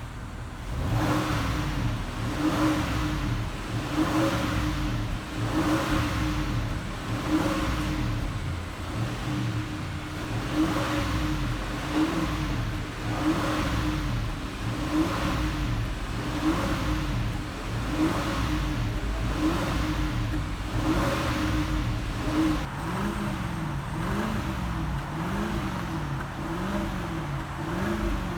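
Bentley's Audi 4.0-litre twin-turbo V8 being revved in short, regular throttle blips, about one every second and a half, while carbon cleaner is run through it to clear a carbon-related misfire. About three-quarters of the way in, the blips give way to engine speed rising and falling in a steady slow waver.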